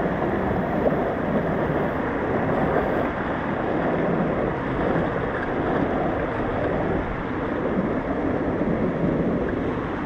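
Steady rush of falling water: a waterfall and the shallow stream below it tumbling over rocks.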